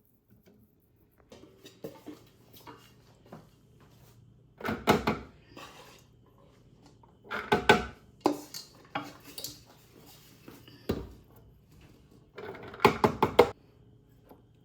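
Metal kitchen utensils knocking and scraping against a pot and dishes, in irregular bursts of clatter. The loudest bursts come about a third of the way in, around the middle, and near the end.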